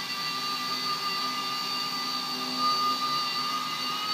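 RC Era A61 mini Airwolf micro RC helicopter hovering in place, its small electric rotor motors giving a steady high whine with several held tones.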